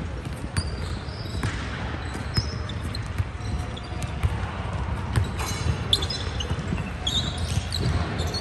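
Basketballs bouncing on a hardwood gym floor, with scattered short high squeaks of sneakers on the court.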